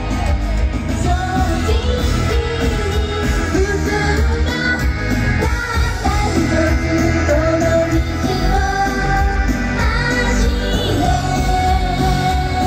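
Live J-pop idol music over a concert PA, with a large group of young women singing to a backing track with heavy bass.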